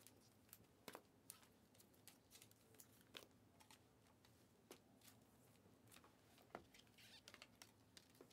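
Faint crinkling and scattered clicks of trading cards and a foil card pack being handled.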